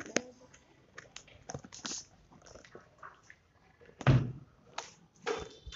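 Scattered knocks, taps and handling noise of a phone being carried through a tiled room, with a louder thump about four seconds in.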